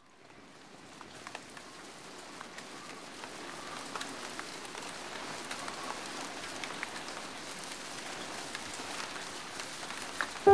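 Rain falling: a steady patter with scattered drop-like ticks, fading in from silence and growing louder over the first few seconds.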